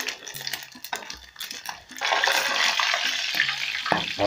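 Small omena fish deep-frying in hot oil in an aluminium pot while being stirred: light scraping and clicks at first, then a loud, steady sizzle from about two seconds in, with a sharp knock of the spoon against the pot near the end.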